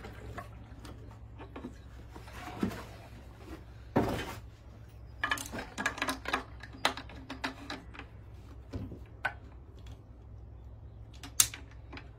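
Scattered plastic clicks and knocks from hands working the ECHO CS-7310SX chainsaw's flip-up tank caps and housing, with a louder knock about four seconds in, a quick run of clicks soon after, and another sharp knock near the end. A steady low hum lies underneath.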